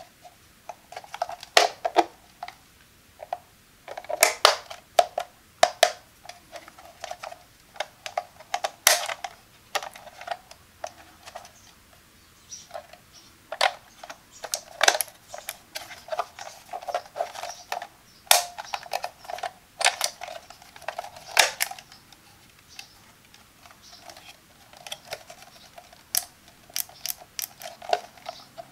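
Hard plastic Ninja blender lid with handle being turned over and handled by hand. It gives off irregular sharp clicks and knocks in clusters, with light scraping and rubbing between them and a quieter stretch near the end.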